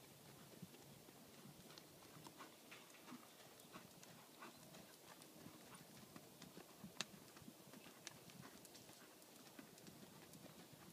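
Faint hoofbeats of a horse cantering on arena sand: soft, irregular clip-clop thuds, with one sharper click about seven seconds in.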